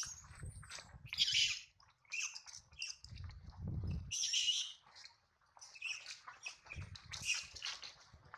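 Short, high-pitched animal chirps and squeals, repeated about once a second, with dull low rumbles three times: near the start, in the middle and near the end.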